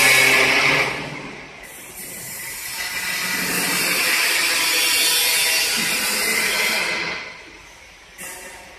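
Factory machinery on a solid-surface casting line: a machine hum with a whine fades out about a second in, then a steady hiss rises, holds for several seconds and fades near the end, with a short click just before the end.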